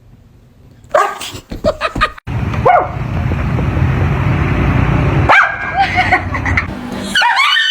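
A German Shepherd puppy barking and yipping: a quick run of short barks about a second in, and more yips a few seconds later. A loud low noise fills the stretch between them, and music starts near the end.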